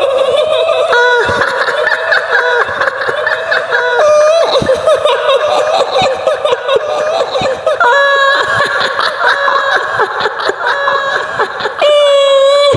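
A high-pitched, wavering female cackle: the shrill laugh of the kuntilanak, the female ghost of Indonesian folklore, as a horror sound recording.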